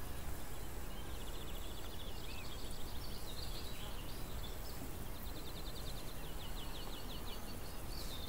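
Country ambience with a steady hiss and birds: a small bird gives a rapid chattering trill about a second in and again at about five and a half seconds, with a faint, broken high note going on and off.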